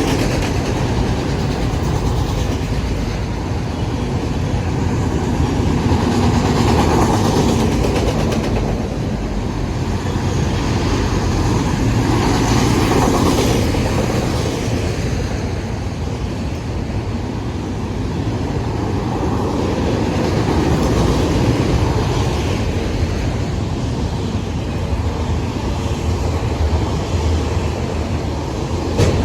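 Norfolk Southern freight train rolling past: a continuous rumble and rattle of steel wheels on the rails as the cars go by, swelling and easing slightly.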